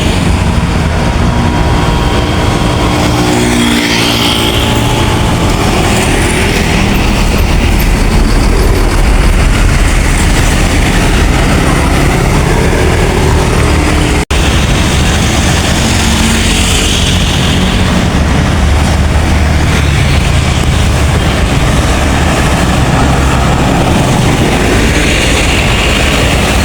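Large diesel buses running and passing close on a road, a continuous loud mix of engine and tyre noise, broken by a sudden brief gap about halfway through where one clip cuts to the next.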